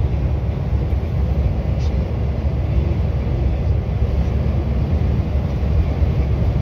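Steady low rumble of a truck engine and tyre noise from a lorry driving at a constant speed, heard from inside the cab.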